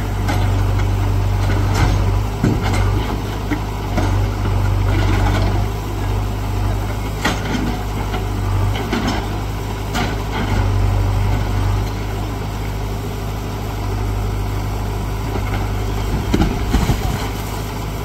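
JCB backhoe loader's diesel engine running steadily, with scattered knocks and crashes of brick and concrete several times as its backhoe bucket breaks down the top of a house wall.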